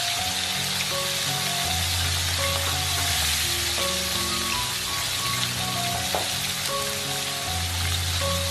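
Selar fish (yellowstripe scad) frying in hot oil: a steady sizzle. It is heard under background music of slow, held notes.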